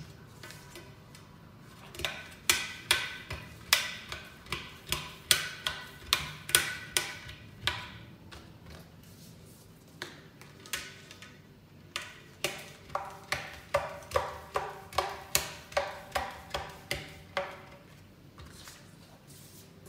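Rubber filler strip being pressed into the slot of a Thule WingBar aluminium roof bar: a series of sharp clicks with a short metallic ring, about two or three a second. There are two runs, with a pause of a few seconds between them.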